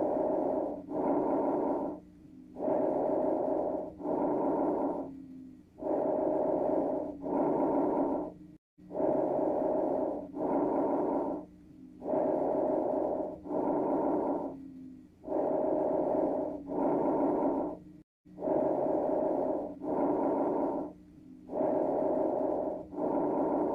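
Recorded lung sounds heard through a stethoscope: a breath in and a breath out, repeating about every three seconds, with a brief gap about every nine seconds where the recording loops.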